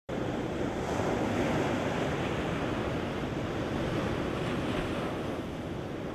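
Ocean surf breaking and washing up a sandy beach: a steady rushing wash of white water that eases slightly near the end.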